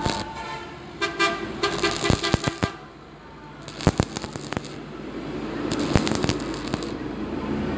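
Stick-welding arc crackling and popping as a rod burns on thin steel square tube, with sharp pops about 4 and 6 seconds in. A horn-like toot sounds over it in the first couple of seconds.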